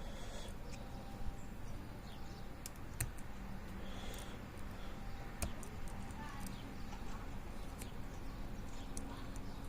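Light, scattered metallic clicks and ticks of a pick turning the discs inside a Bumper disc-detainer lock, as an overset disc is worked to drop, over a low steady hum.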